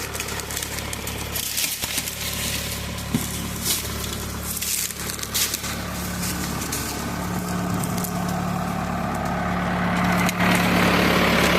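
Old backhoe's engine running steadily, with scattered crackling and knocking as brush and scrap are moved; the engine grows louder in the last few seconds.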